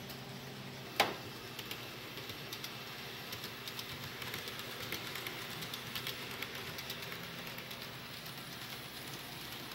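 N-scale model passenger train running on modular layout track, its wheels making small irregular clicks and ticks over the rail joints above a low room hum. One sharp click comes about a second in.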